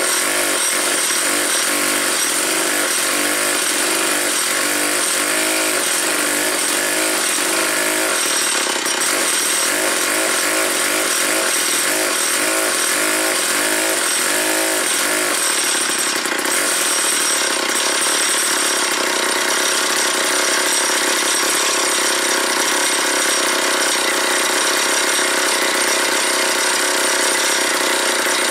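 Old McCulloch 250 chainsaw's two-stroke single-cylinder engine running at idle, with a pulsing, uneven beat that evens out about fifteen seconds in.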